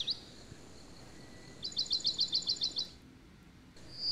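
A small songbird singing a fast trill of repeated high chirps, about nine a second for just over a second, a little past the middle.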